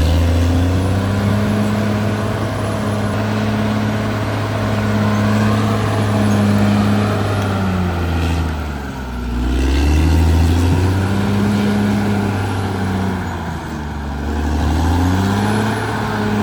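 Caterpillar D6R XL bulldozer's diesel engine running loudly. Its pitch sags and recovers twice, about nine seconds in and near the end.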